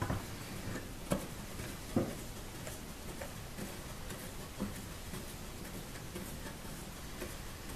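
A few faint metallic clicks and taps as screws on a bandsaw's upper blade-guide assembly are turned by hand with a small hand tool: one about a second in, one about two seconds in, a softer one later on.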